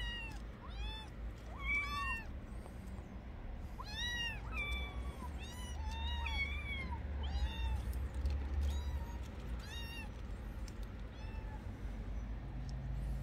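Stray kittens mewing again and again: a dozen or more short, high-pitched cries that rise and fall, thinning out near the end.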